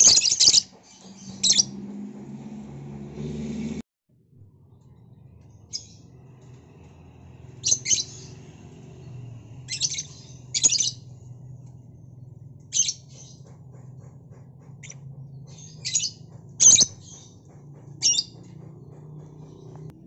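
Lovebirds giving short, shrill chirping calls, about a dozen loud bursts at irregular intervals, sometimes two close together.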